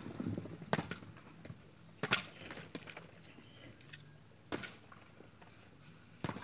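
Dry coconuts being unloaded from a donkey's pannier baskets and tossed onto a pile: four sharp knocks as they land, one to two seconds apart.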